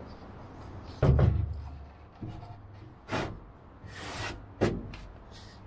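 Handling noises of a cordless work light being carried and set down on the plywood of a wooden aircraft fuselage: a heavy thud about a second in, then a few sharp knocks and a brief scrape.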